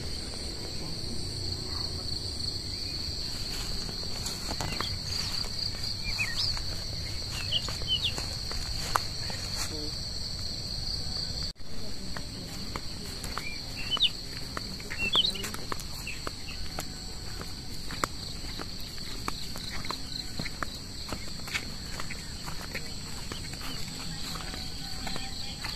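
Steady high-pitched insect chorus, pulsing evenly, with short rising chirps now and then. A momentary dropout a little over eleven seconds in.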